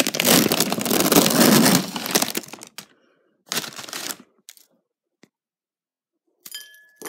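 Plastic cookie packaging with a foil tray crinkling and crackling as it is handled and cookies are taken out: loud for the first two and a half seconds, then a shorter burst and a few light clicks.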